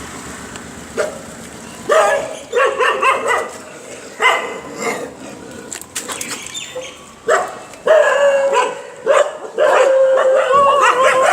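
Stray puppies yelping and whining, with short calls at first, then longer drawn-out whines in the second half.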